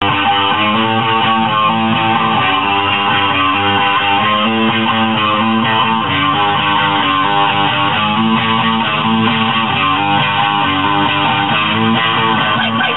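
Band playing a song with strummed guitars over bass guitar, steady and loud throughout.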